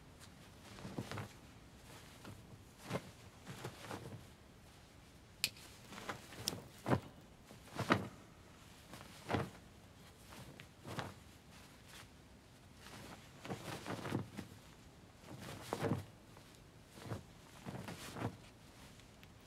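Scattered knocks, clicks and thuds at irregular intervals, roughly one every second or two, with a couple of sharper clicks a little past the middle.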